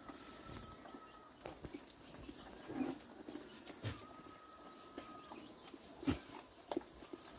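Quiet farmyard sounds of livestock: scattered knocks and taps, with a short low animal call about three seconds in and the loudest knock about six seconds in. A faint, steady high tone comes and goes twice.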